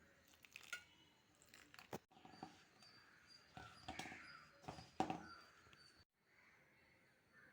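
Near silence with a few faint, sharp knocks and clicks scattered through it.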